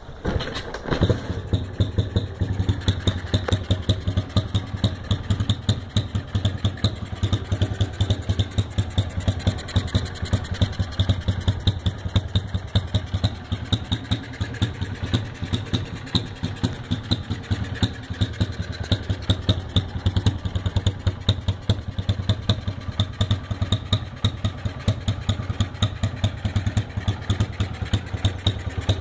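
Honda CG 150 Titan's single-cylinder four-stroke engine, fed by a Honda Strada 200 carburettor, catching in the first second and then idling with a steady, evenly pulsing exhaust beat.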